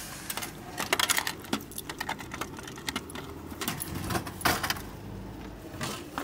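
Vending machine dispensing a purchase: a series of rattling clicks and clatters from the mechanism, over a low motor rumble in the middle.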